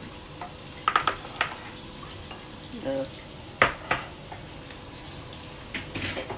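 Green chillies and spices sizzling in hot oil in a kadai, with a steel spoon stirring and knocking against the pan several times, the sharpest knock a little after the midpoint. The chillies are being fried to take off their heat.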